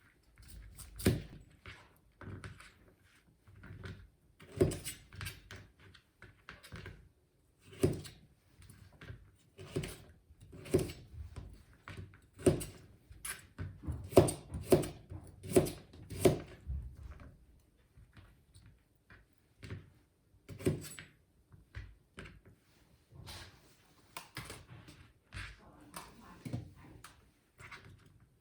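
Irregular knocks, clicks and thunks of kitchen work, such as utensils, pans or cupboard doors being handled, one every second or two with a busier run about halfway through.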